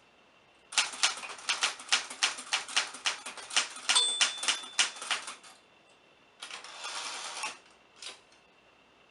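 Typewriter keys striking in a quick run of about four or five clacks a second for several seconds, with a short bell ring partway through. The run is followed by a sliding, rasping noise lasting about a second, the sound of a carriage return, and then a single clack.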